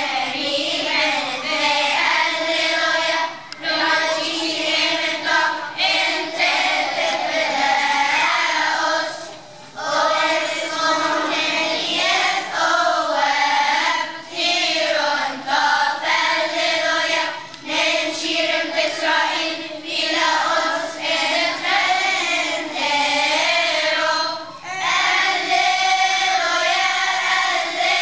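Children's choir of boys and girls singing together, pausing briefly between phrases.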